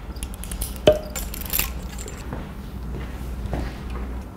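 Pilates apparatus being handled and set up: a sharp knock with a brief ring about a second in, then a clatter and a few fainter knocks, over a low steady hum.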